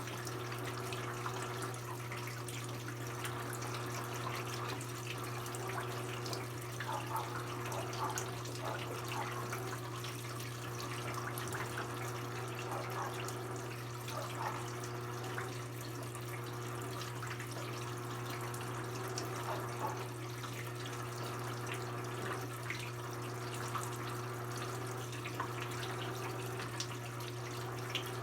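Brastemp BWK17 17 kg washing machine partway through its cycle: water running and splashing in the tub over a steady low hum.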